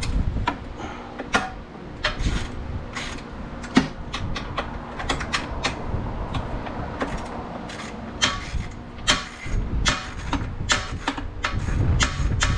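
Irregular metallic clicks and clinks of a socket wrench and hand tools working on a car's front-end bolts, over a low rumble.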